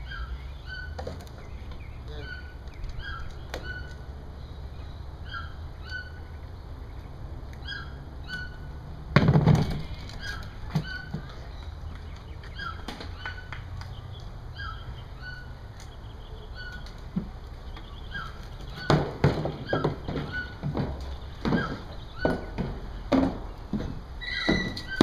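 A small bird chirping over and over, a short two-note call about once a second. A monkey handling a hard plastic toy in its wire cage makes one loud thunk about a third of the way in, and a run of knocks and clatters near the end.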